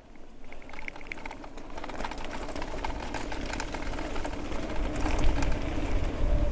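Fat tyres of an Engwe C20 Pro folding e-bike rolling over a gravel track, getting louder as the bike gathers speed, with wind rumbling on the camera microphone. A faint steady whine, the hub motor running under pedal assist, comes in about halfway.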